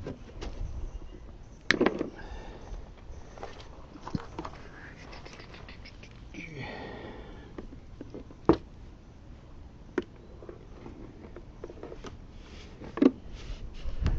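Scattered handling noises from cable-installation work: a few sharp knocks and clicks, with a short rasping scrape midway.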